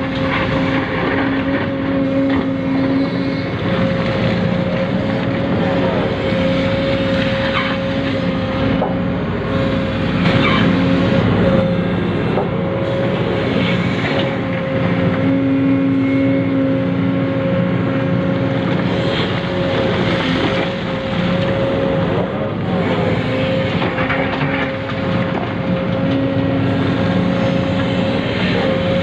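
Small electric motors of a radio-controlled model excavator and dump truck whining steadily. Lower tones switch on and off every few seconds as different functions are worked.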